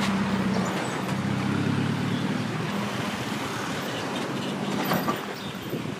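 Street traffic: a motor vehicle's engine runs close by with a steady low hum over road noise. The hum fades after about three seconds.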